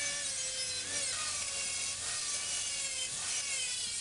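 Power grinder grinding down the weld seams of a sheet-metal rust-repair patch, its whine dipping and rising in pitch as it bears on the metal.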